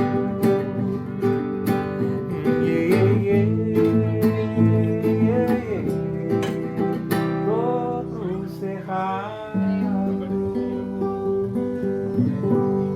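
Background music: a song on strummed acoustic guitar, with a voice singing a few phrases.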